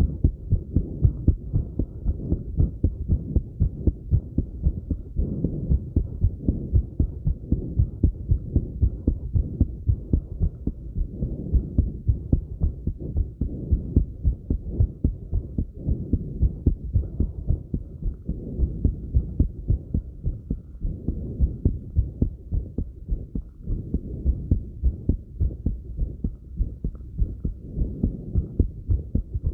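A fast human heartbeat, raised by light exercise: a steady, even run of low thuds. Softer breaths swell in and out every few seconds.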